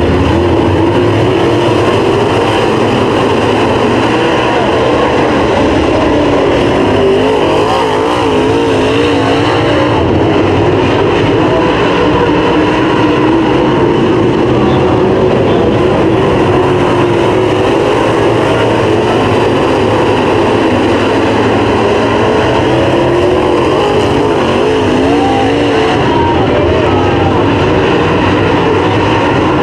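A field of dirt late model race cars at speed, their V8 engines loud and steady, pitch wavering up and down as the cars go through the turns.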